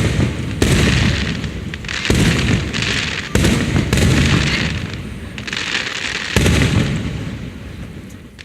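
Fireworks shells bursting overhead: about five deep booms, each followed by a slowly fading rumble and a crackling hiss, with the last one a little over six seconds in.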